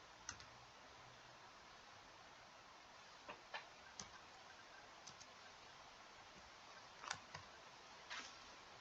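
Near silence with faint, scattered clicks of a computer keyboard being used, some of them in quick pairs.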